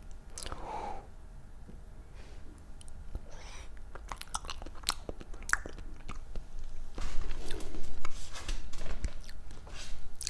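Close-miked eating: bites and chewing with sharp crunchy clicks, getting louder from about seven to nine seconds in.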